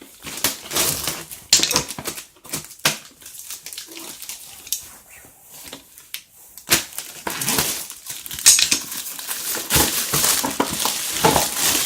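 A cardboard box being opened and its plastic packaging handled: scattered sharp clicks and taps, then louder rustling and crinkling over the last few seconds.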